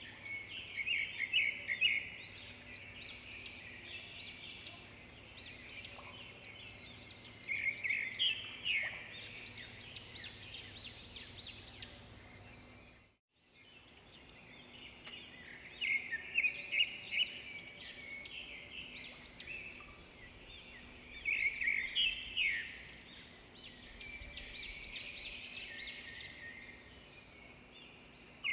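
A chorus of many small birds chirping and twittering, with quick, high calls coming in busy bursts. The sound drops out briefly a little past halfway, then the chorus resumes.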